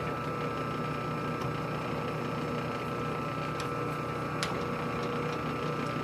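Steady machine hum, with a few light metallic clicks as the lathe's tool post is adjusted by hand.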